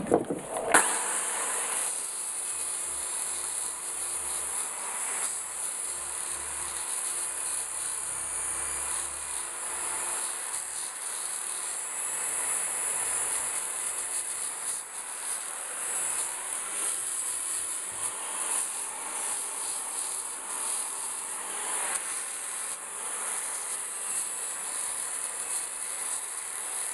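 Electric drill spinning a 120-grit abrasive flap wheel against a rusty steel sledgehammer head, grinding off rust: a steady high-pitched whine and hiss that starts just under a second in.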